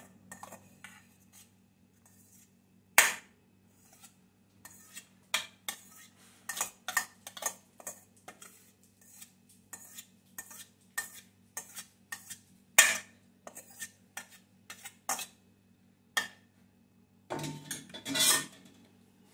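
A metal spoon scraping and clinking against a stainless steel colander as cooked white rice is spooned out into a bowl: irregular, sharp knocks and scrapes, a few much louder than the rest. A longer, denser clatter comes near the end, over a steady low hum.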